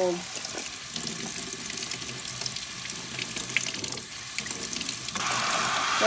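Kitchen faucet running in a single stream over a plastic mesh dishwasher filter into a stainless steel sink. About five seconds in, the faucet is switched to spray mode and the water turns suddenly to a louder hiss.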